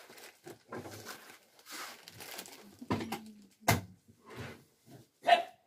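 Plastic snack packets rustling and crinkling as they are handled, broken by two sharp knocks, the louder one near the end.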